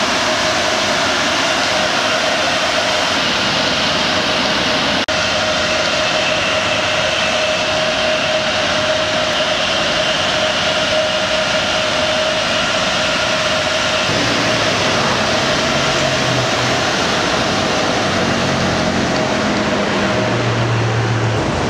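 Car wash air-dryer blowers running with a steady, loud roar and a constant whine. A deeper hum joins in the last third.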